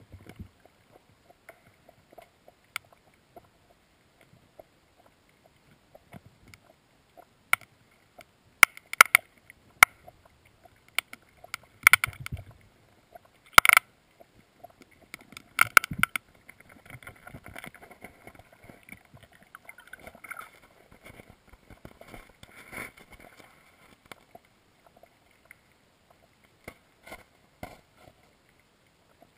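Sharp irregular clicks and knocks picked up underwater through a GoPro's waterproof housing, loudest in a cluster through the middle, followed by a fainter rustling crackle and a few more clicks near the end.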